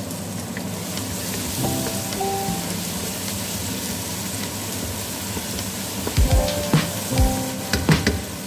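Chopped tomatoes and onions sizzling in a hot pot. From about six seconds in, a wooden spatula stirring them knocks and scrapes against the pot in a run of loud strokes.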